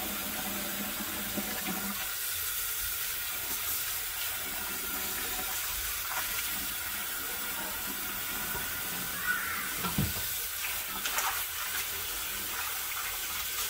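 Kitchen faucet running in a steady stream into the sink and a basin of water as rice noodles are rinsed and swished by hand, with a few brief louder splashes about ten seconds in.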